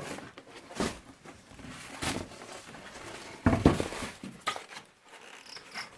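Knocks, clatter and rustling of packing as mini band saw parts are taken out of their box and set down, the loudest clatter about three and a half seconds in.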